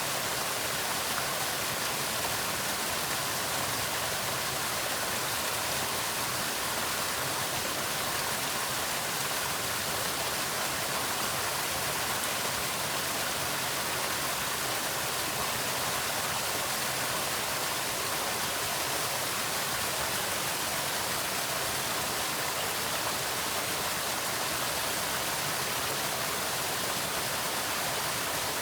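Waterfall, the steady rush of falling water with a full, hissing wash.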